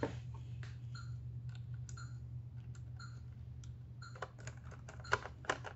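Light clicks and taps of small plastic and metal parts being handled inside the opened syringe pump's housing during reassembly, scattered at first and then a quick run of clicks near the end, over a steady low hum.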